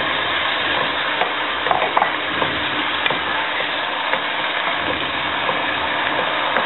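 Sliced beef sizzling as it stir-fries in a large nonstick pan, with a wooden spatula scraping and knocking against the pan every second or so.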